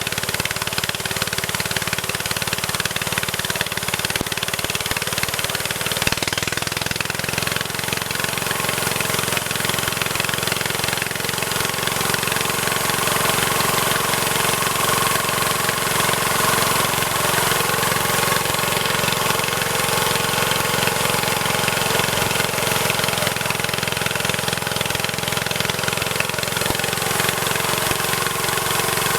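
Engine of a homemade tree-cutting machine running steadily under way, its low note shifting about six seconds in.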